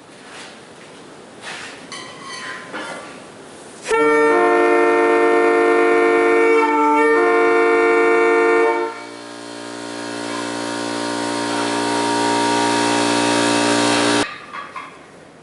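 Locomotive air horn made up of mismatched bells, blown in two long blasts one straight after the other. First comes a loud chord of several notes lasting about five seconds. Then a lower, buzzier chord swells in loudness for another five seconds and cuts off sharply.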